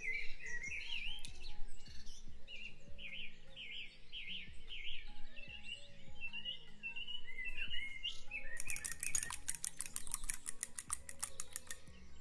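Birds chirping over soft background music. A bit past two-thirds of the way through comes a fast, even run of clicks, about seven a second, as a fork beats eggs in a bowl.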